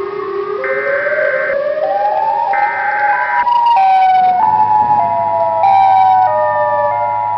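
Electronic siren-like alarm tones. Short high beeps repeat about every two seconds over a slowly rising tone, then from about halfway a stepped, falling tone sounds over a steady tone and a low hum.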